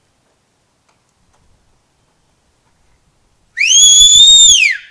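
A single loud whistle about a second long, sliding quickly up in pitch, holding, then falling away, about three and a half seconds in after near silence.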